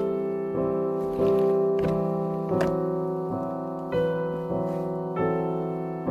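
Background music: slow piano chords, a new chord struck roughly every second and left to ring.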